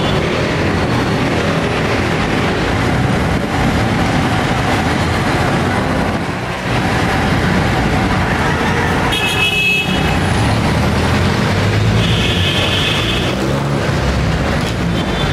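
Busy road traffic with jeepneys and other vehicles running close by, a steady loud din. Two high horn toots of about a second each sound, one about nine seconds in and one about twelve seconds in.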